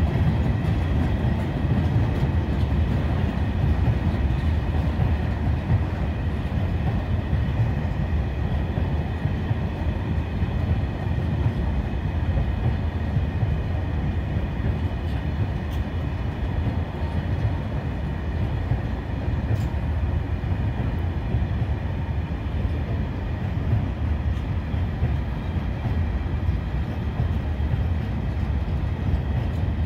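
Long freight train of Talbot-type self-discharging hopper wagons rolling past steadily, the wheels giving a continuous low rumble over the track.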